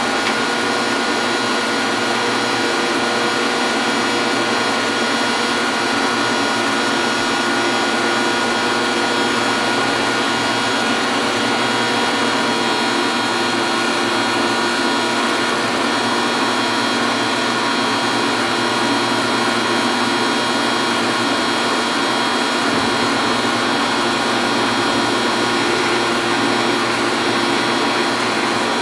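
Metal lathe running steadily, set up for thread cutting: an even mechanical hum with several held whining tones from its motor and gearing.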